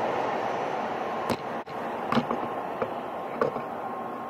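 Bullet-train station platform ambience: a steady rushing noise left by a train that has just passed, easing off, broken by an abrupt cut about a second and a half in. Then quieter platform background with a few light clicks and a faint steady tone.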